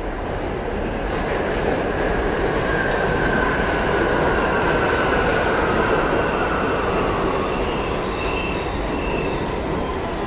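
NYC Subway train running past through a curved station: a steady rumble of wheels on rail with a high wheel squeal that glides slowly down, then a few brief higher squeals near the end, from wheel flanges grinding on the curved track.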